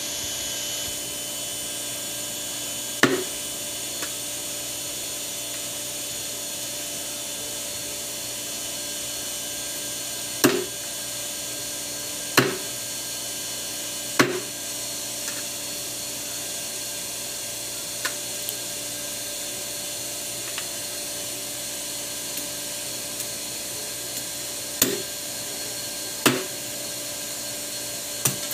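A machete chopping grilled chicken on a wooden chopping block: about eight separate sharp chops, spaced irregularly a second to several seconds apart, over a steady background hiss.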